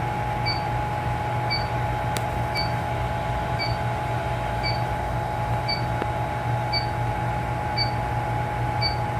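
Steady machinery hum with a short, high electronic beep repeating about once a second, plus a couple of faint clicks a little after two seconds.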